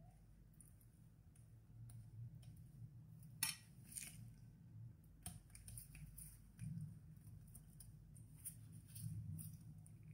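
Faint scraping and light clicks of a spoon spreading tomato sauce over a pizza base on baking paper, with one sharper click about three and a half seconds in, over a low steady hum.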